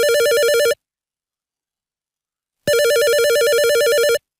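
Synthesized telephone ring from FL Studio's Sytrus synth: a square-wave tone warbling rapidly between two pitches. One ring cuts off under a second in, and after a two-second silence a second ring of about a second and a half follows.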